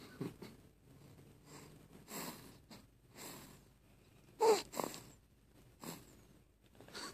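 Snoring: a run of short, noisy breaths about once a second, the loudest about four and a half seconds in with a brief squeaky whistle.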